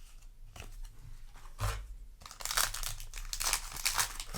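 Foil booster pack wrapper being handled, torn open and crinkled. There is a soft knock about one and a half seconds in, then a busy run of crackling wrapper noise to the end.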